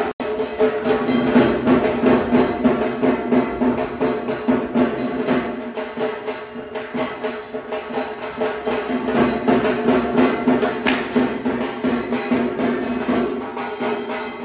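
Music with steady drumming over held notes.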